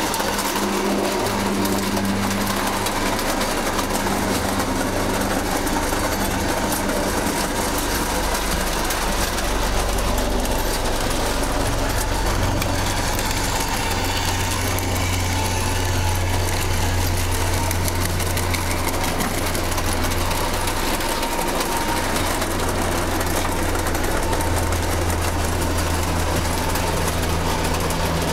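ACE Trains O gauge model locomotive running on its layout track: a steady whirring hum of the electric motor with the rattle of wheels on the rails. The low hum grows stronger about halfway through.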